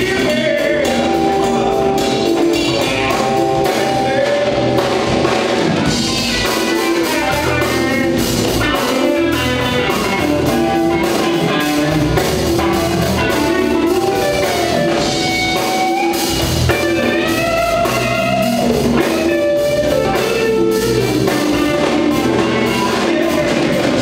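Live band playing a song with electric and acoustic guitars, bass, keyboard, drum kit and hand percussion.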